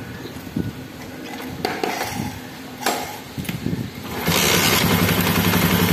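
A few short metal clinks and knocks, then about four seconds in a Honda CD80's small single-cylinder four-stroke engine starts and runs steadily, fresh from a cylinder-head and timing rebuild.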